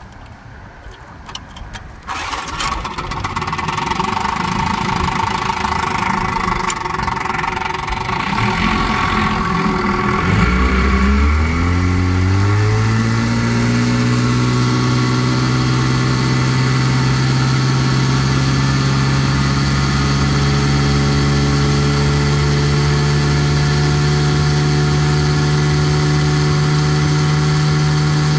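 1960 Johnson QD-21 10 hp two-cylinder two-stroke outboard running. It gets louder about two seconds in, then its revs climb over two or three seconds around the middle and it settles into a steady high-speed run as the boat gets under way, with water rushing past the hull.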